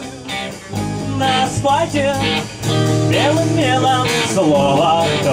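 Amateur rock band playing at rehearsal: guitar accompaniment with a voice carrying a gliding melody over it.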